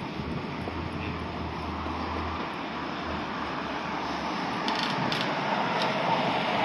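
Steady noise of city traffic on wet streets, heard from a moving bicycle, growing a little louder towards the end, with a low hum in the first couple of seconds and a few light clicks about five seconds in.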